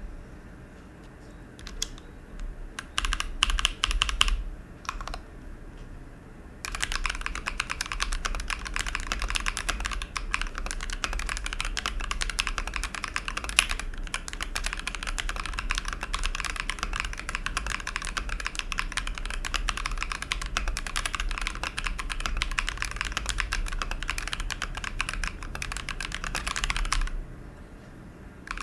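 Typing on a mechanical keyboard with lubed Jwick Ginger Milk linear switches in an Apollo61 Light Year board without plate foam. A few scattered keystrokes come first, then fast continuous typing from several seconds in, which stops shortly before the end.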